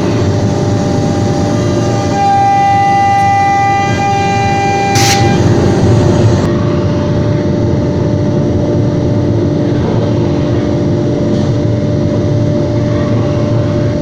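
CNC router spindle running at high speed with a steady whine while a profile cutter mills MDF. A higher tone sounds over it for the first five seconds, and there is a short hiss about five seconds in.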